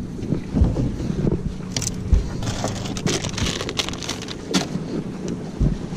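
A clear plastic bag crinkling as it is handled, among knocks and thumps of gear in a bass boat's open storage locker. The crinkling is densest around the middle, over a steady low hum.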